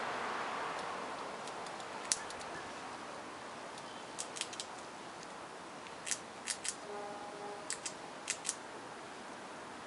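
Grey squirrel gnawing on fruit: sharp crunching clicks, irregular and in small clusters of two or three, over a steady background hiss.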